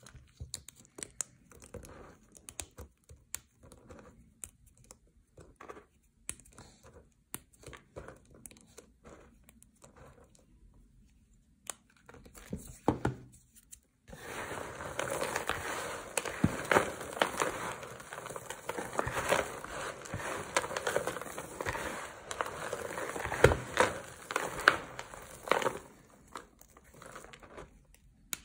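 Dry soap shavings and chips crackling under the fingers: sparse light crackles at first, then from about halfway a dense, continuous crunching as hands squeeze and crumble the heap of soap flakes.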